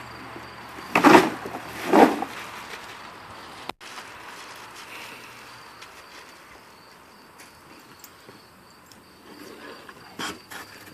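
Ice cubes shaken out of a plastic bag into a plastic tub: two loud dumps about a second apart. Afterwards a steady insect drone carries on in the background, with a few small knocks near the end.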